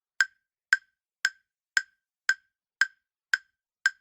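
Countdown-timer ticking sound effect: short, sharp ticks evenly spaced at about two a second, eight of them.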